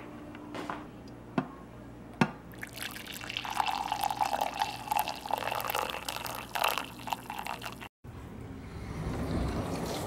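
Fresh coffee poured from a Cuisinart glass carafe into a cup: a steady splashing stream for about five seconds that cuts off abruptly. A few light knocks come before the pour starts.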